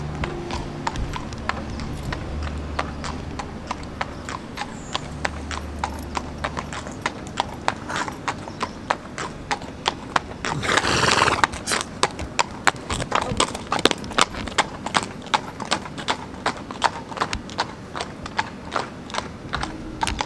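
Horse's hooves clip-clopping on a tarmac road as it is led in hand, the strikes coming faster and louder after the first several seconds. There is a brief rushing noise about halfway through.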